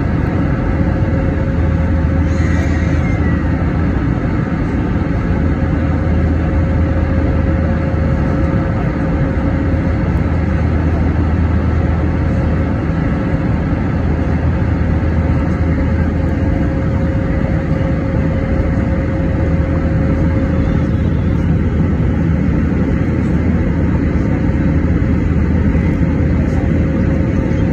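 Steady cabin noise of an Airbus A320 climbing out, heard from a seat over the wing: a constant low hum from the IAE V2527-A5 engines mixed with rushing airflow, with a thin steady tone running through it.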